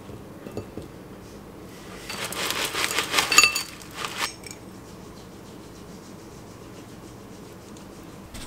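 Granola poured from a crinkly foil bag into a ceramic bowl: the bag crackles and the clusters rattle into the bowl for about two seconds, starting about two seconds in. Before that, a few light clicks of blueberries and a spoon in the bowl.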